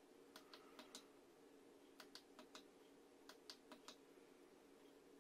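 Faint clicks of a small switch or push-button on the bench, in three quick runs of about four clicks each, over a steady faint low hum.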